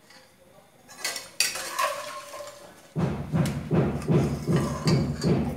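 A metal spoon scraping and clinking against an aluminium pot as fried pork cracklings are scooped out. About three seconds in, background music with a steady beat starts and becomes the loudest sound.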